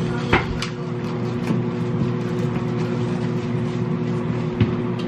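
A steady machine hum, a constant low drone with a few faint clicks and knocks of handling near the start and again about four and a half seconds in.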